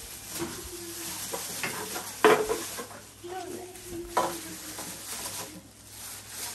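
Thin plastic carrier bag rustling and crinkling as empty plastic PET bottles are handled and put into it, with two sharper knocks, about two and four seconds in, the first the louder, as bottles go into the bag.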